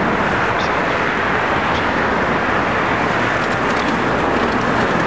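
Steady, even roar of road traffic.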